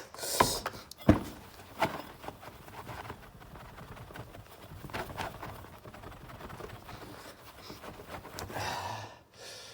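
A metal part being handled and wiped down: a few sharp knocks in the first two seconds, then soft rubbing, with a louder stretch of rubbing near the end.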